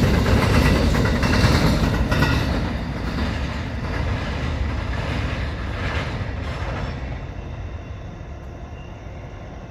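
Grain hopper wagons of a freight train rolling past, wheels clacking over the rail joints, then the rumble fades steadily as the end of the train moves away.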